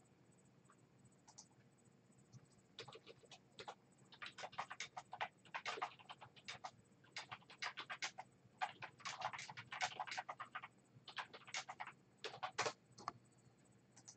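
Faint crinkling and scratching of plastic-wrapped card packaging being handled, in irregular clusters of short crackles that start about three seconds in and die away near the end.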